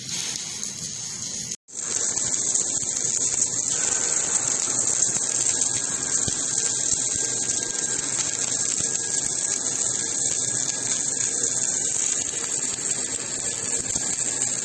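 Automatic submerged arc overlay welding machine running on a roller: a steady loud hiss over a low hum. It cuts out briefly about a second and a half in, then resumes louder and steady.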